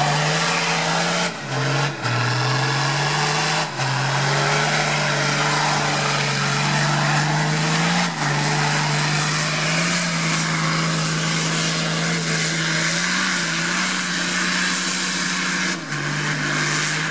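Nissan Patrol's engine held at high revs as the 4x4 churns through deep mud, its note fairly steady, with a few brief breaks where the pitch jumps up or down.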